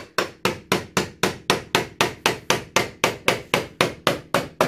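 A hammer striking wood in fast, evenly spaced blows, about three and a half a second, each a sharp crack with a short ring.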